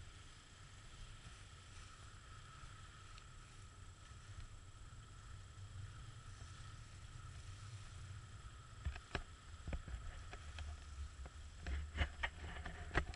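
Wind buffeting the microphone and water rushing past the hull of a MacGregor 26X sailboat under sail. From about nine seconds in, and more densely near the end, come a string of sharp knocks and flaps.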